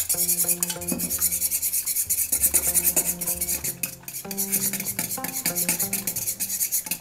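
A Toki-cocochi metal egg-beating utensil whisking beaten eggs in a stainless steel bowl: rapid, even strokes of metal scraping and clinking against the bowl, several a second, with a brief pause about four seconds in.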